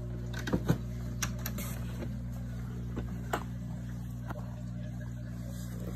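A few light clicks and knocks from the plastic case of a scan tool and its bagged accessories being handled, over a steady low hum.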